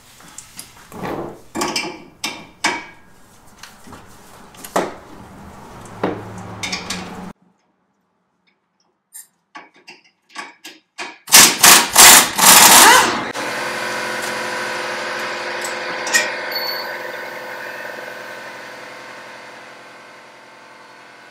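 Pneumatic impact wrench hammering the rear shock's lower bolt loose in a loud burst of about two seconds, after a stretch of scattered metallic clicks and knocks from hand tools on the axle mount. A steady hum of several tones follows and slowly fades.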